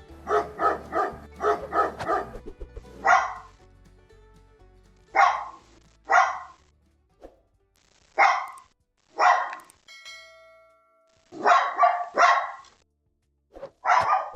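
Dog barking: a quick volley of about eight barks in the first two and a half seconds, then single barks spaced a second or more apart.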